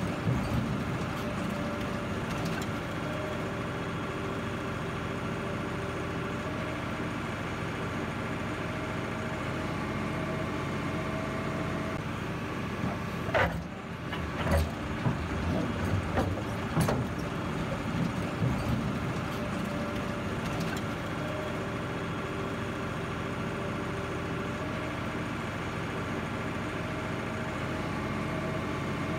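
Engine of a heavy vehicle running steadily at an even speed, with a few knocks and clatters about halfway through.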